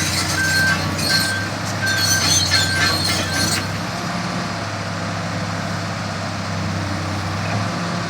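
1999 Komatsu PC400LC excavator's diesel engine running steadily. For the first few seconds its steel tracks clank and squeal and a travel alarm beeps about every three-quarters of a second; then the clanking and beeping stop and only the engine runs on.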